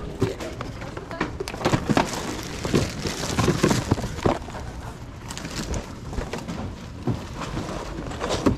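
Irregular clatter and knocks of boxed merchandise being picked up and handled, with a wire shopping cart rattling.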